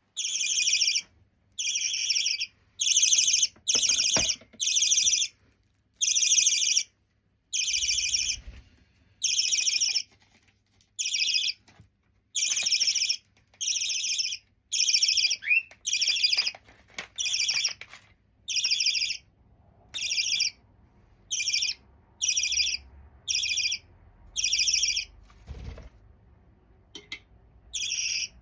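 Half-jumbo budgerigar chick calling: a long series of harsh, raspy calls of about half a second each, repeated roughly once a second.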